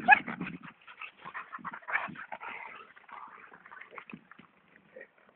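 Dogs at play: a short, high dog cry right at the start, the loudest sound, then scattered softer, shorter dog sounds that thin out towards the end.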